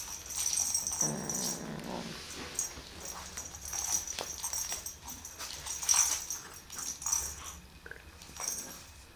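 A kitten growling low for about a second, a second or so in, while it holds on to a pompom wand toy. Light rustling and clicks from the toy come and go around the growl.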